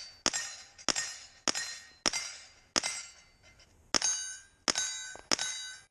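Rifle shots on steel targets, each followed by the clang and ring of the struck plate: five hits about 0.6 s apart on different plates of a plate rack, a pause of about a second, then three more shots at the same pace, all ringing the same note from a single steel target.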